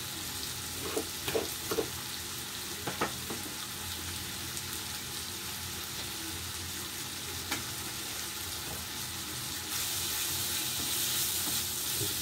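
Chicken, peppers and onion sizzling in a frying pan: a steady hiss, with a few light knocks in the first few seconds. The sizzle grows louder near the end as the food is stirred with a wooden spoon.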